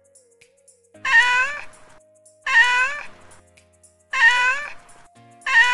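A cat's meow sound effect, the same meow repeated four times about every second and a half, over faint background music.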